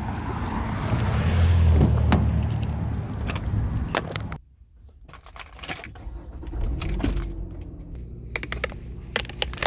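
Keys jangling and clicking over a low car rumble. The rumble drops away sharply about four seconds in, leaving scattered clicks and rattles.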